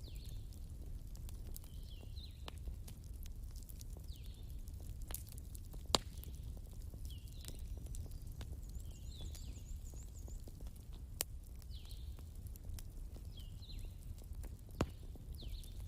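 Wood fire crackling: a steady low rumble of flames with scattered sharp pops, the loudest about six seconds in. Short high chirps recur every second or so behind it.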